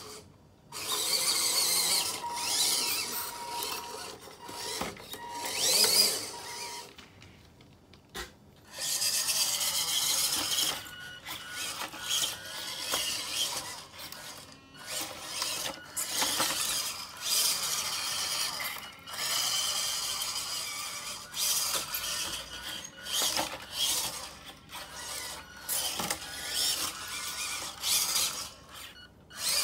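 Small 1/16-scale RC truck on a WPL chassis driving: its electric motor and gearbox whine in surges of a second or two as it speeds up and stops, with a near pause about seven seconds in.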